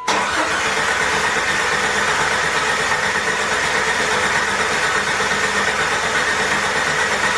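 Jeep Wrangler engine being turned over by its starter motor without firing, a steady mechanical whirring that starts abruptly. The engine is cranked only to push oil through the newly fitted turbocharger so that it is lubricated before the first start.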